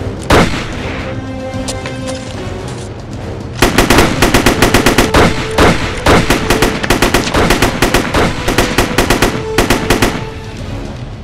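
Film gunfight: a single gunshot just after the start, then from about four seconds in a long run of rapid gunfire, about five shots a second, lasting several seconds, over background music.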